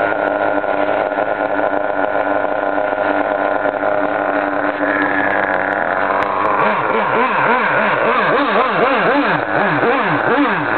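Kyosho RC model car's motor running steadily, then revved up and down over and over, about twice a second, for the last few seconds.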